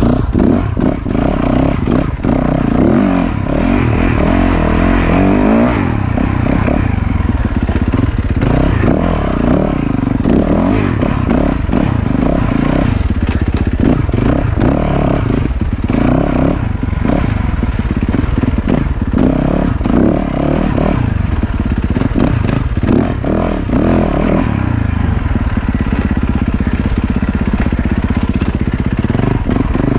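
Yamaha YZ450FX's 450cc single-cylinder four-stroke engine revving up and down as the dirt bike is ridden over rough trail, held in first gear, with frequent knocks and clatter from the bike over the ground.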